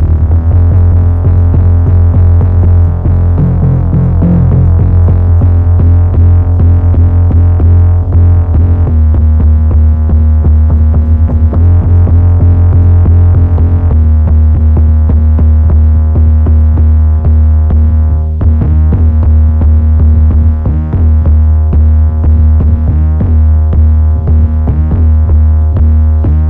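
Trap beat playing: a distorted 808 bass synthesised from Logic Pro's stock instruments holds long low notes, changing pitch about nine and fourteen seconds in, under programmed drum-machine drums.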